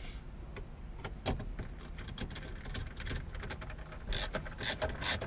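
Scattered clicks and knocks, then a quick run of scratchy clicks and creaks near the end: plastic interior trim and screws being handled and fitted with a Phillips screwdriver.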